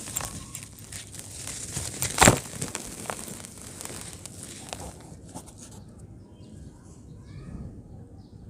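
Dried brown clay breaking up in crackling, crunchy snaps, with one sharp crack about two seconds in. The crunching stops about five seconds in, and faint bird chirps follow.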